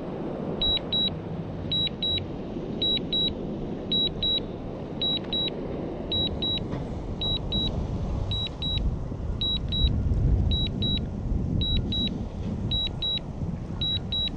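DJI Mini 2 remote controller sounding its return-to-home alert: high double beeps repeating about once a second, over a steady low rumble.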